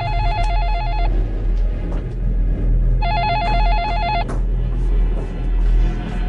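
Landline telephone ringing with a warbling electronic trill: two rings about a second long, some three seconds apart, over low background music.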